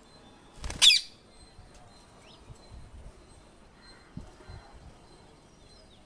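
Rose-ringed parakeet giving one loud, short, high-pitched squawk about a second in, followed by a few faint chirps.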